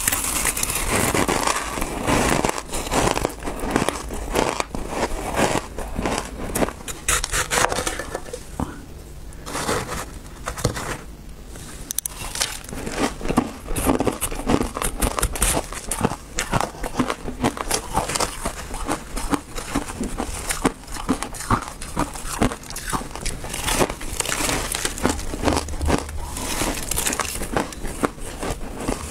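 Close-up crunching and chewing of mouthfuls of dyed crushed ice: a dense run of crackling, crisp crunches, with the spoon scooping into the ice. A somewhat quieter stretch comes about a third of the way in.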